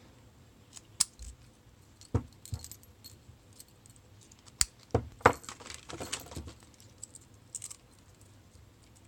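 Small padlock keys and padlock bodies being handled, clinking and jangling in a scattered series of sharp metallic clicks, the loudest about five seconds in.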